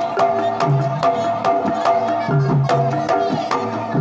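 Live Banyumasan gamelan playing a tayub piece: kendang hand-drum strokes and struck saron metallophone notes in a steady rhythm, over sustained ringing metal tones.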